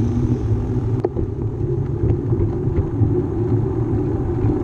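Steady low rumble of wind on the microphone and bicycle tyres rolling on a concrete path while riding, with a single sharp click about a second in.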